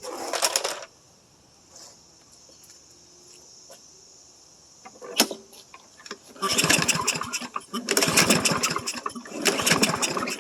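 Troy-Bilt self-propelled lawn mower being pull-started with the recoil cord: one short pull at the start, then three pulls in quick succession near the end, the engine cranking over without catching. The mower won't start. Insects chirp steadily in the background.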